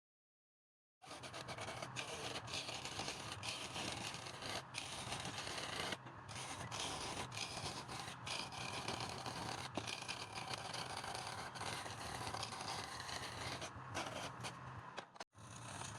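Turning tool cutting and scraping wood that is spinning on a lathe: a steady rasping noise over a low motor hum. It starts about a second in and has a few short breaks.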